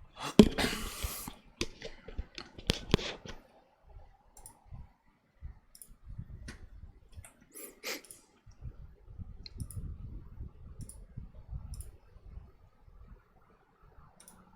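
Scattered clicks and knocks of handling, with a short loud rustle about half a second in and sharper clicks around two and three seconds, then fainter clicks and low thumps.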